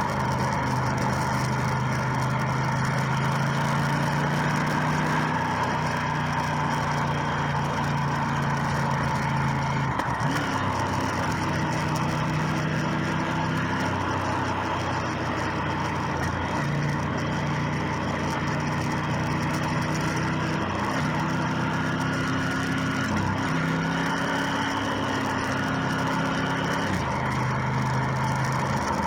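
Motorcycle engine running while riding, its pitch holding, sliding and then jumping to a new level several times as the gears are changed, over a steady rush of wind and road noise.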